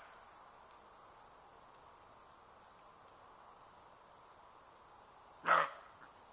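A roe deer doe gives one short bark about five and a half seconds in, the species' alarm call.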